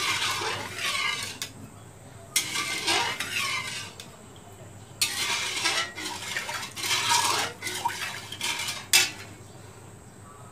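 Metal spatula stirring and scraping sugar and water around a metal karai to dissolve the sugar into syrup, in four bursts of strokes with quieter gaps. A single sharp clink of the spatula on the pan comes near the end.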